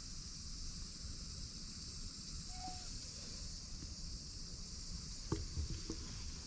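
Steady high-pitched chorus of insects, with a brief faint chirp about two and a half seconds in and a few soft knocks and rustles a little past five seconds.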